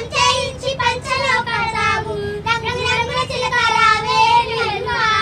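Schoolchildren singing a song together, the melody carried on long held notes with only brief breaks.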